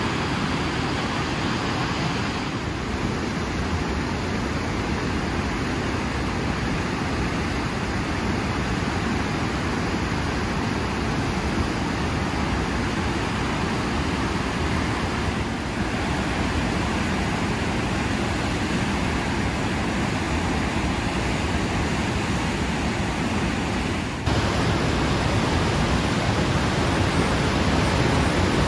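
Niagara River whitewater rapids rushing: a steady, dense wash of water noise with no letup. There are small sudden shifts in level, the biggest a step louder near the end.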